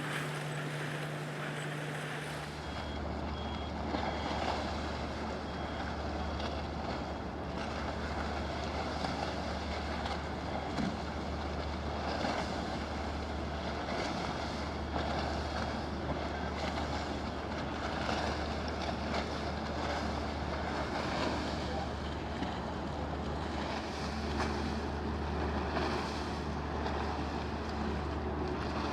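Steady low hum of a large ship's engines, with wind buffeting the microphone. The sound changes abruptly about two and a half seconds in, when a higher steady tone gives way to the deeper hum.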